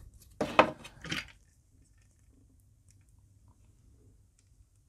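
Handling noise: two short bursts as hands pick up and handle a plastic toy Dalek, about half a second and a second in, then only faint room tone.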